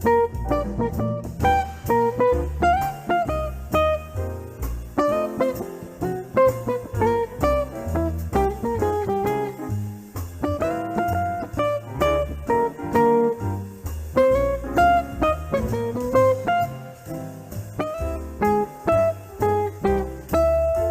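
Background music: jazz guitar playing plucked melody notes over a steadily moving bass line.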